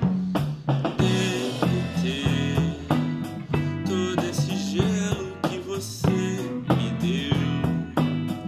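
A rock band playing a song: drum kit with cymbals keeping a steady beat under an electric bass line and guitar, with a lead voice singing over them.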